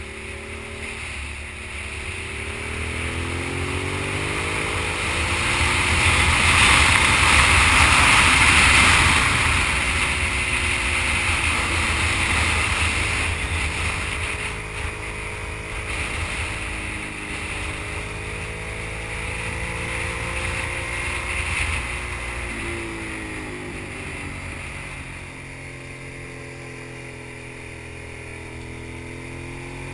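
Sport motorcycle engine running at road speed, its pitch rising and falling with the throttle through the curves. A heavy rush of wind on the microphone swells loudest about a third of the way in.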